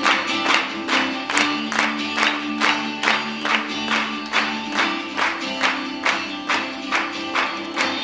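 Recorded music with a steady beat, about three sharp strikes a second, over held low notes that shift in pitch.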